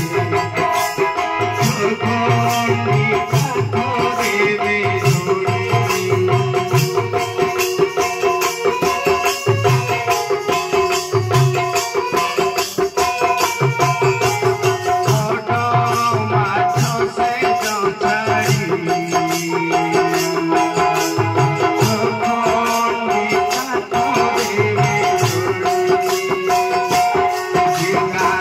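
Live devotional bhajan music: an electronic keyboard holding sustained notes, a two-headed barrel drum beating a repeating rhythm, and a fast, steady rattling percussion over the top.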